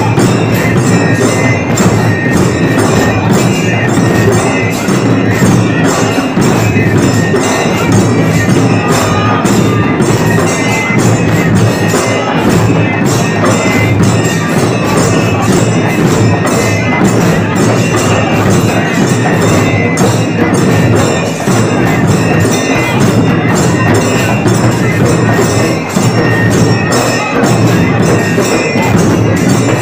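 Large Dhangari dhol drums beaten in a fast, unbroken rhythm, with bright metal clashing over the drumming, typical of the cymbals that go with them.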